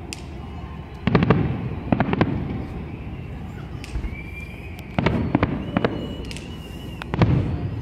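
Aerial fireworks shells bursting in a public display: a series of sharp booms about one, two, five and seven seconds in, each trailing off in a rumble, with a faint high whistle between them.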